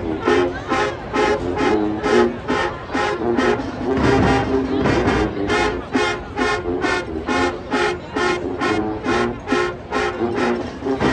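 High school marching band playing: brass holding pitched chords over a steady, evenly spaced drum beat of about three strokes a second.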